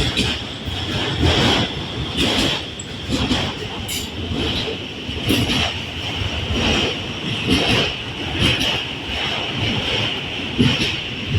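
Freight train cars rolling past, their wheels knocking over rail joints about once a second, over a steady high-pitched hiss.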